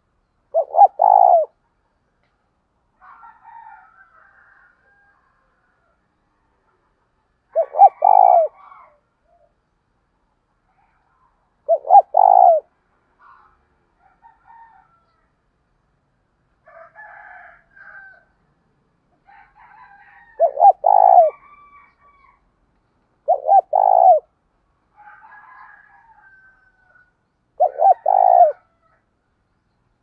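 Spotted dove cooing its repeated 'gáy thúc' urging call: six loud phrases a few seconds apart, each a short note then a longer coo. Fainter, higher bird calls fall between the phrases.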